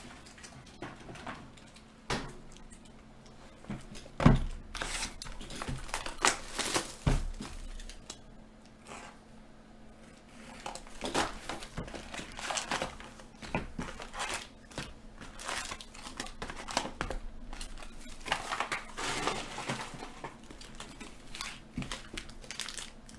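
Plastic shrink wrap crinkling and tearing as it is stripped off a sealed hockey card box, then foil-wrapped card packs rustling as they are lifted out and stacked. A single sharp thump about four seconds in.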